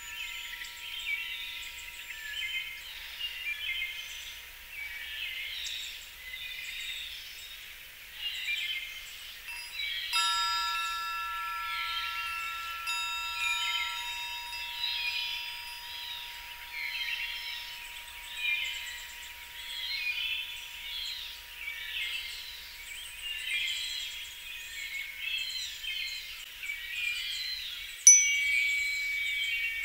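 Wind chimes ringing, with a few notes struck about ten seconds in and left to fade slowly, over a steady chorus of chirping birdsong. A single sharp click comes near the end.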